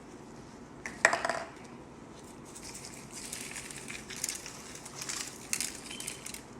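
Kitchen handling sounds while seasoning a pot of greens: a sharp clack with a brief ring about a second in, then a run of scratchy rustling and shaking.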